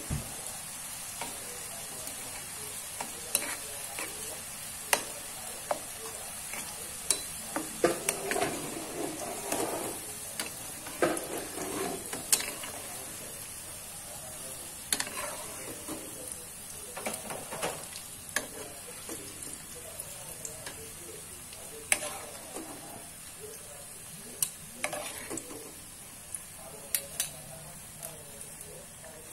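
Tempeh pieces sizzling in hot oil in a wok, a steady high hiss, with a metal spatula scraping and knocking against the pan as they are stirred and lifted out.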